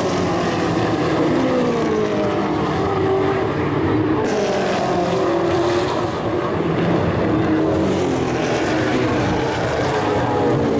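Muscle-car race engines running hard as several cars pass through a corner one after another, the engine notes rising and falling with acceleration and gear changes.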